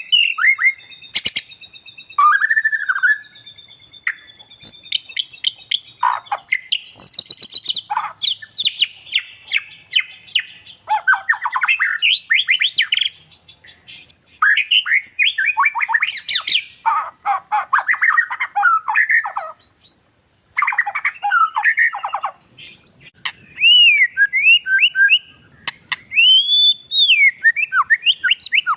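Oriental magpie-robin (kacer) in full, busy song: loud, rapid and varied whistles, trills and scratchy notes in bursts with short pauses, over a steady high hiss.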